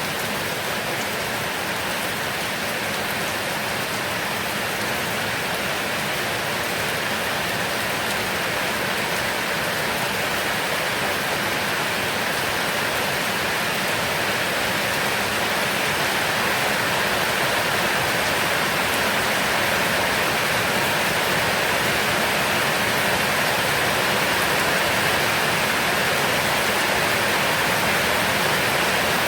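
Heavy rain falling in a dense, steady hiss that grows slowly louder.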